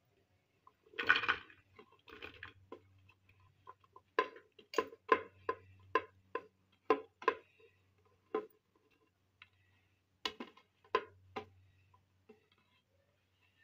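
Food being pushed by hand off a ceramic plate into an empty aluminium pressure cooker. A brief rustle about a second in is followed by a run of sharp clicks and taps, two or three a second, as pieces drop onto the metal and the plate knocks the pot's rim. A few more taps come near the end.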